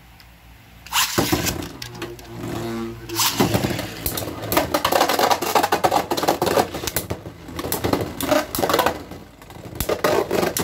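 Two Beyblade X spinning tops, Hellscythe and another, launched into a plastic stadium about a second in, then whirring and rattling around the bowl with repeated sharp clacks as they collide.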